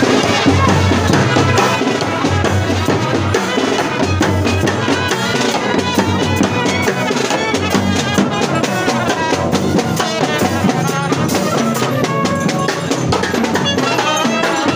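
Street procession brass band playing a tune, brass horns carrying the melody over a steady beat of bass drum and snare.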